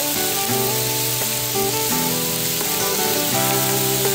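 Thin pork slices sizzling in a nonstick frying pan, a steady hiss, under background music.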